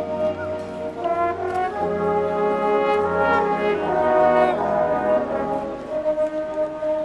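Marching band brass section playing sustained chords, the notes moving about a second in and again near two seconds, swelling loudest around four seconds in before settling on a held chord.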